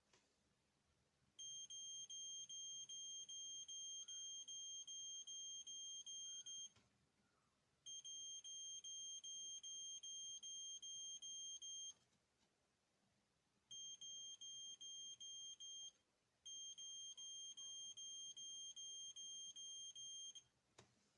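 Electronic beeper sounding rapid, evenly spaced high beeps, about two to three a second, in four runs separated by short pauses.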